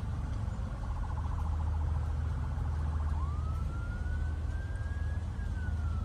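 A siren wailing: one slow rise in pitch starting about three seconds in, then a slow fall near the end, over a steady low rumble.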